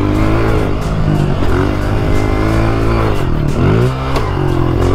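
125cc pit bike engine running under throttle as the bike is ridden, its pitch rising and falling with the revs. About three and a half seconds in, the revs drop away sharply and climb straight back up as the throttle is shut and reopened.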